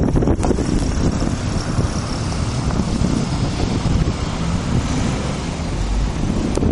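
Blizzard wind buffeting the microphone: a steady, rumbling rush of noise.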